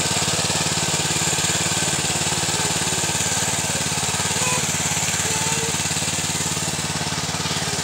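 Tiger GT 800 mini cultivator's small petrol engine running steadily with an even, fast chugging as its tines work through dry soil.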